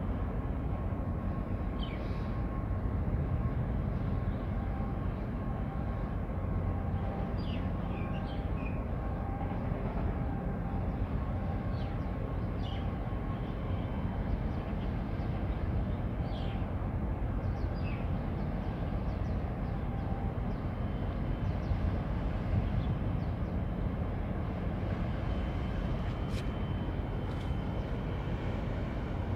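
Container ship's engine giving a steady low rumble as the ship sails past, with a few short high chirps over it.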